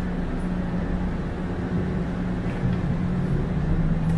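Inside a moving SFO AirTrain car, an automated people mover: steady motor hum and rolling rumble. The motor's tone drops slightly in pitch near the end.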